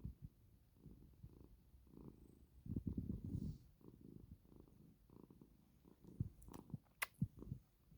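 Domestic cat purring, a low rhythmic rumble in waves, swelling loudest about three seconds in. A short sharp click near the end.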